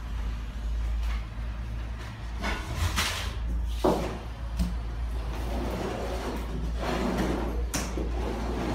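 Hand glue spreader scraping latex floor adhesive across a cement floor in several short strokes, the clearest about three and four seconds in and again near the end, over a steady low hum.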